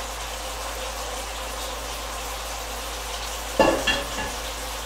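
Chicken thighs sizzling steadily in barbecue sauce in a pan. About three and a half seconds in, a metal saucepan is set down on the gas stove's grate with a clank and a brief ring, and knocks once more just after.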